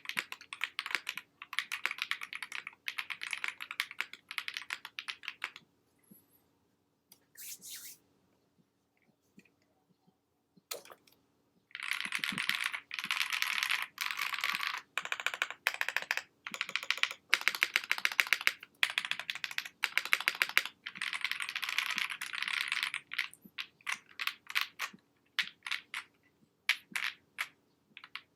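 Wind X65 mechanical keyboard with Tecsee Carrot linear switches and VOO Cherry keycaps being typed on in quick runs of keystrokes. The typing stops for several seconds in the middle, then resumes fast and thins to slower single key presses near the end.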